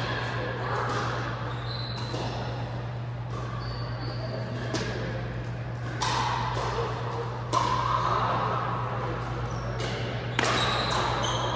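Pickleball paddles striking a plastic ball: sharp, irregular pops that ring briefly in a large hall, about eight in all. A few short high squeaks and a steady low hum run under them.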